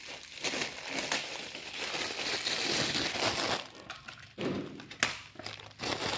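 Thin plastic wrapping crinkling and crackling as it is pulled off a dog water bottle by hand, dense for the first three and a half seconds, then a few separate crackles and clicks.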